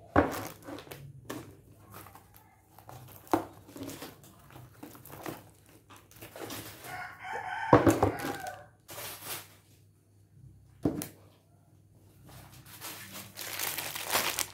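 Groceries being set down on a wooden counter: metal food tins knock down one by one, and plastic packets rustle near the end. A rooster crows once about seven seconds in.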